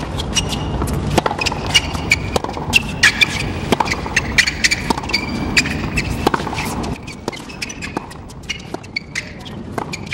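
Tennis rally on a hard court: a ball struck back and forth with rackets and bouncing, a steady series of sharp knocks with short high squeaks of shoes on the court among them. The background gets quieter about two-thirds of the way through.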